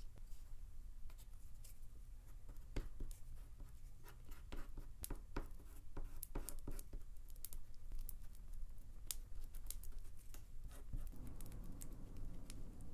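A thin wooden stick stirring two-part epoxy adhesive on a sheet of card, making irregular small clicks and scratches.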